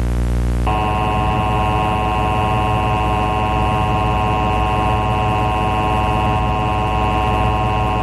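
Emergency Alert System attention signal from a Sage EAS ENDEC, its two-tone alert distorted into a harsh, steady electric buzz like hair clippers. This is the faulty 'killer buzzer' attention tone. It starts about a second in, after a low hum.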